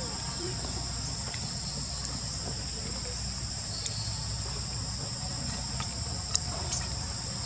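Steady high-pitched chorus of insects, two even tones held without a break, with a few sharp clicks, the loudest a little past six seconds in.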